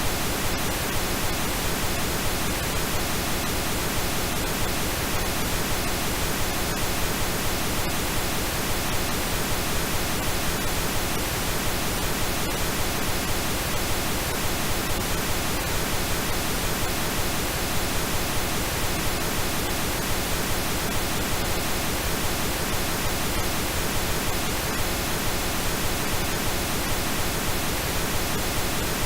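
Steady synthesized pink noise, an even hiss spread from deep bass to treble that does not change, with faint steady tones mixed in beneath it.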